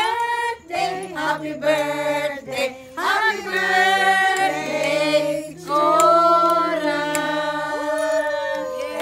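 A group of women singing a birthday song together, with long drawn-out notes, the last one held for several seconds near the end.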